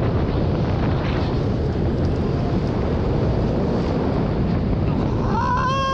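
Steel roller coaster train running at high speed along its track, with wind rushing over the on-ride microphone and a constant rumble. Near the end a rider gives a brief high-pitched yell.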